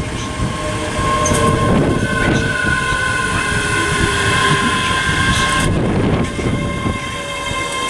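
ScotRail Class 385 electric multiple unit pulling in along the platform, its wheels rumbling on the rails under several steady whining tones from its electric traction equipment. One of the whines falls in pitch near the end as the train slows.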